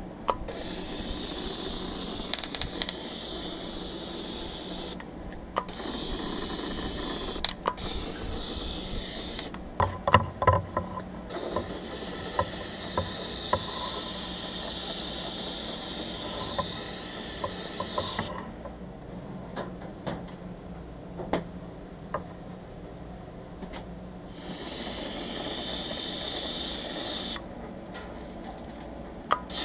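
Compressed air hissing out of a hand-held powder-coating gun as it sprays powder, in four bursts that start and stop sharply as the trigger is pulled and released; the longest burst lasts about seven seconds. Light clicks and knocks fall between and during the bursts, over a low steady hum.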